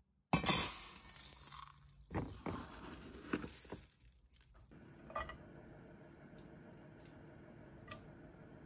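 Crinkling and rustling with a few sharp crackles for about four seconds, like something crinkly being handled or torn open, then quiet room tone with two light clicks.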